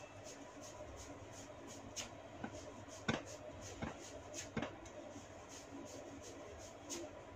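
Sharp cracking snaps from strands of hair being twisted and tugged at the scalp (hair cracking), about six of them, the loudest a little after three seconds in. Under them is a faint regular rustle, about three strokes a second.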